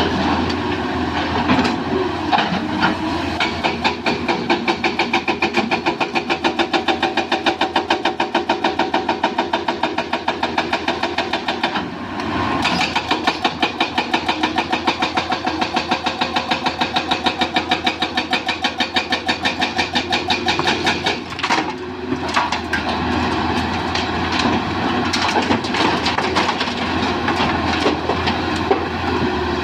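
Komatsu PC200 hydraulic excavator working, its diesel running under load with a fast, regular clatter over two stretches of about eight seconds each, broken by a short lull about twelve seconds in and again about twenty-one seconds in.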